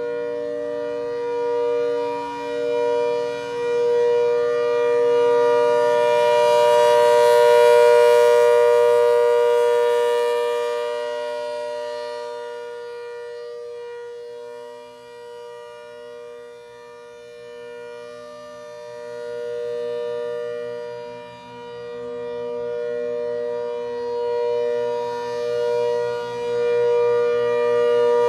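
ACA Hurricane MKII 130 rotating outdoor warning siren sounding its steady Alert tone, the pitch held constant. The sound swells as the horn turns toward the listener, loudest about eight seconds in, fades to its weakest around the middle, then grows again near the end.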